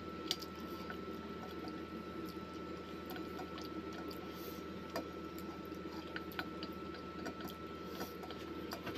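Soft wet chewing of noodles, with a few small clicks of chopsticks against a stainless steel bowl, over a steady background hum with a faint high tone.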